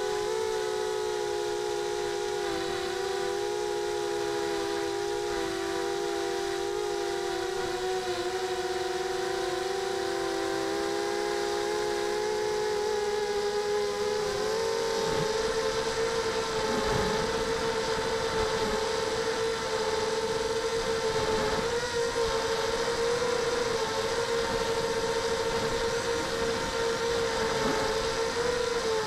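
The Mogo250 mini quadcopter's Sunnysky 2300 brushless motors and propellers whine, heard from on board as several close tones beating together. The pitch dips slightly, then rises a little past halfway as the throttle is opened.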